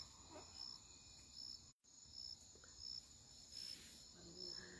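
Faint night crickets chirping in a regular, evenly spaced rhythm over a quiet background; the audio drops out completely for an instant just under two seconds in.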